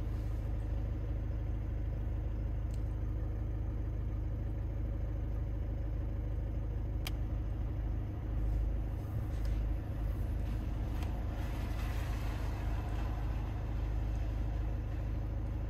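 Volkswagen Jetta's engine idling, a steady low hum heard from inside the cabin, with a single sharp click about seven seconds in.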